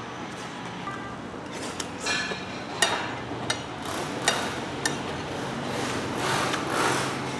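A metal spoon clinks against a plate or bowl several times during eating, sharp separate clicks over a steady background hum. A louder hiss swells up near the end.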